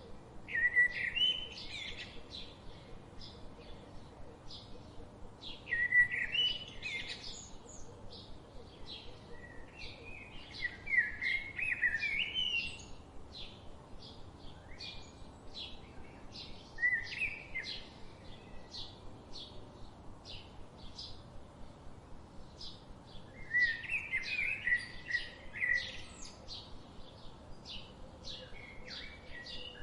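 Songbirds singing: one bird gives loud warbled phrases every few seconds, over another steady, rapid series of short high chirps, a few to the second.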